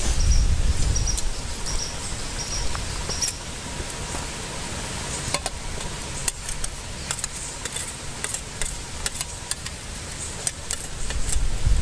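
Wood fire crackling under a pan of simmering broth, with a steady hiss and scattered sharp clicks. Insects chirp in a regular pulse for the first few seconds. A low rumble comes at the start and again near the end.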